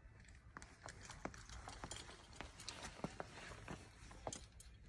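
Irregular light clicks and taps, about a dozen in a few seconds, from a belayer moving about on a rock ledge while paying out rope to a lead climber.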